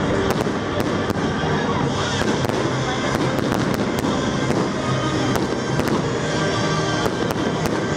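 Aerial fireworks bursting, with many sharp bangs and crackling in quick succession, over music played with the show.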